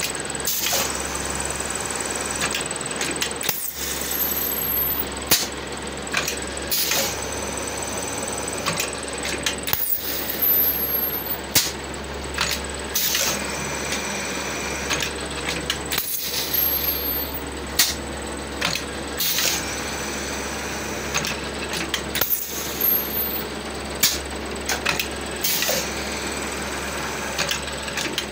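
Plastic moulding machine running, with a steady low hum and repeated metallic clanks and clinks every one to a few seconds.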